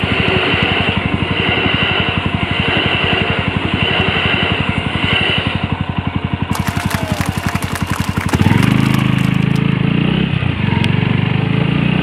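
Suzuki Grasstracker BigBoy's single-cylinder four-stroke engine idling with a rapid even pulse while a railway level-crossing alarm rings; the alarm stops about five or six seconds in. Near the end the engine pulls away under throttle with wind noise on the microphone.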